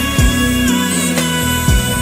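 Slow French R&B ballad music: held chords with two low drum beats, one just after the start and one near the end.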